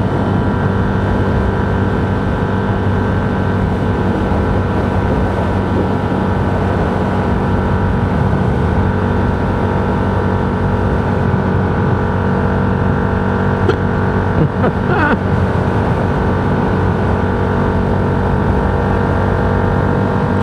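Steady engine and road noise of a vehicle cruising at highway speed, around 70 to 80 mph.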